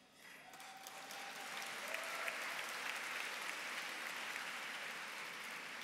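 Large audience applauding, swelling within the first second and then slowly tapering off.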